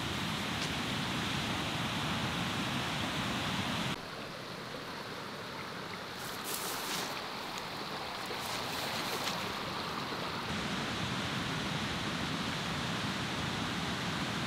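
Steady rush of moving river water. The sound changes abruptly about four seconds in and again past ten seconds, with a few short splashes in between.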